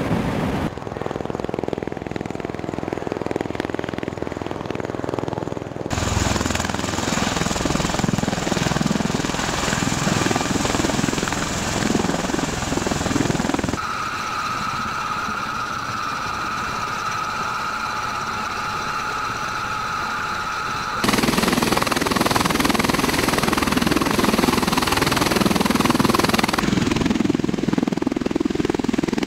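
MV-22 Osprey tiltrotor's rotors and engines running, a rapid rhythmic beating whose character changes abruptly several times. A steady high whine stands out through the middle, and it is loudest in the last third.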